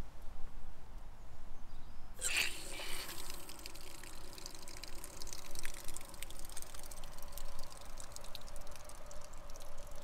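Canal water-point standpipe tap opened about two seconds in, water rushing through the valve into a hose with a steady hiss and a faint steady tone, filling a narrowboat's water tank.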